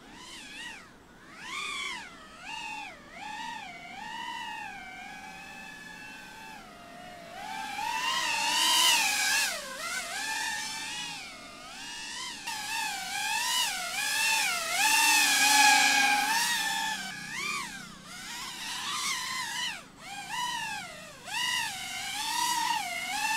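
Small FPV cinewhoop drone (GEPRC CineLog35) spinning up from the grass and flying: its brushless motors and propellers whine, the pitch rising and falling constantly with the throttle. The whine grows louder about eight seconds in and again around fifteen seconds.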